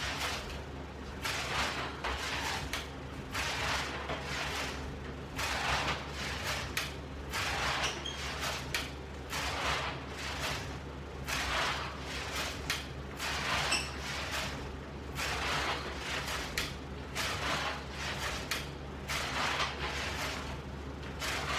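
Ab roller wheel rolling out and back across the floor in repeated rollouts, a rolling swish about once a second.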